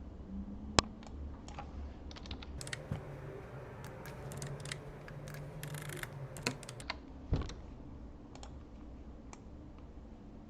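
Typing on a computer keyboard: scattered key clicks, one sharp click under a second in and a denser flurry of keystrokes in the middle.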